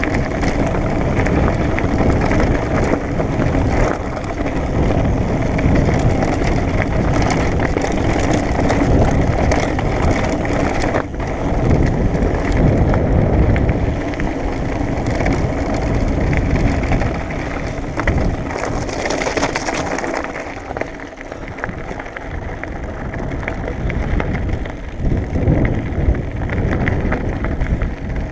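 Wind buffeting the microphone over the crunch and rattle of a mountain bike's tyres and frame on a loose gravel dirt road at speed. The sound eases off somewhat in the last several seconds as the bike slows.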